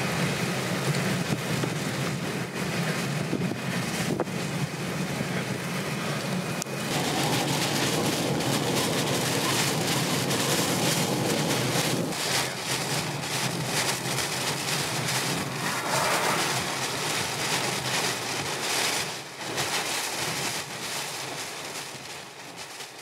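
Hurricane wind and heavy rain lashing a moving vehicle, with road and engine noise beneath. The noise fades away near the end.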